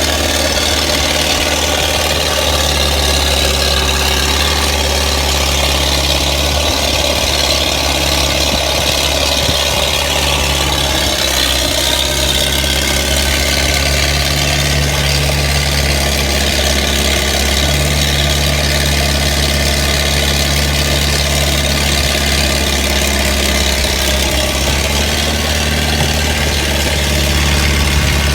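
Diesel engine running steadily at low revs, taken to be the JCB 5C excavator's 77 hp Perkins 4.248 four-cylinder; its note shifts slightly a few times.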